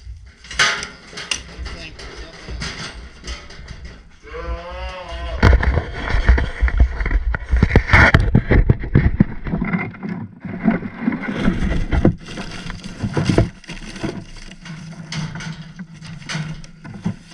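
Bottles, boxes and tools clattering and knocking as hands rummage through a plastic tool tray. About four seconds in, one wavering bawl from cattle cuts through.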